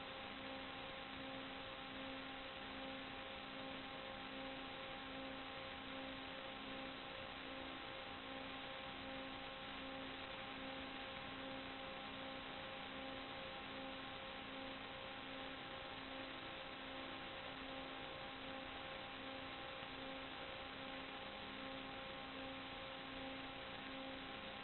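Steady hiss with a constant low electronic hum and its overtones, unchanging throughout: the noise of an analog FPV video link's audio channel.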